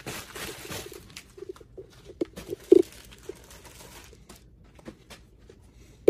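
Plastic mailer bag rustling and crinkling as it is handled and opened, fading over the first few seconds, with a few short, low squeak-like sounds, the loudest near the middle.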